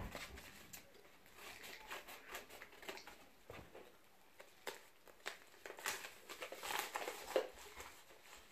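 Faint rustling and crinkling of a yellow padded paper mailing envelope as it is cut open with scissors and handled, with scattered light clicks.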